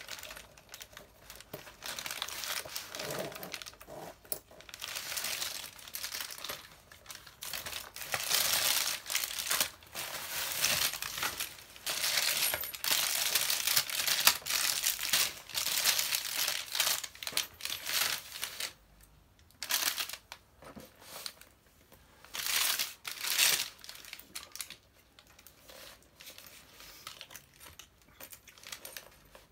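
Bubble wrap and clear plastic packaging crinkling and rustling in irregular bursts as hands unwrap a handbag and its strap, loudest through the middle and quieter, sparser handling toward the end.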